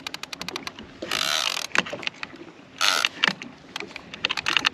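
Fishing reel clicking rapidly and evenly as line is cranked in on a hooked marlin, with two loud bursts of rushing noise, about a second in and about three seconds in.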